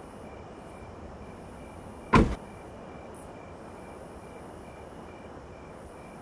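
A car door slammed shut once, a single heavy thump about two seconds in, as the driver settles into his seat. Under it runs a steady background hiss with a faint high tone pulsing about three times a second.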